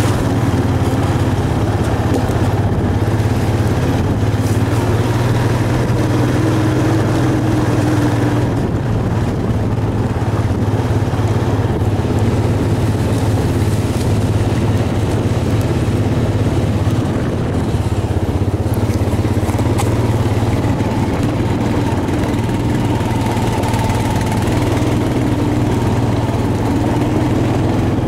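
Four-wheeler ATV engine running steadily while riding along a dirt trail: a constant low drone with a fainter whine that rises and falls a little now and then.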